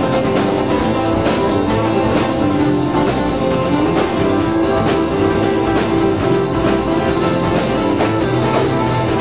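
Live rock band playing a song, electric or amplified guitar over a steady drum beat.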